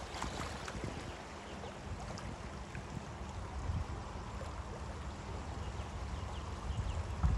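Steady rush of flowing floodwater with a low rumble underneath and faint scattered ticks.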